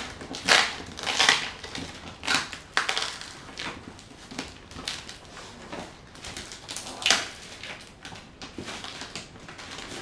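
Cardboard shipping box and its plastic and foil packaging being handled and opened by hand: irregular crinkling and rustling, with several louder crunches in the first few seconds and again about seven seconds in.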